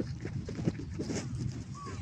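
Miniature schnauzer growling low and unevenly, a rough rumble of short pulses, while guarding a ball.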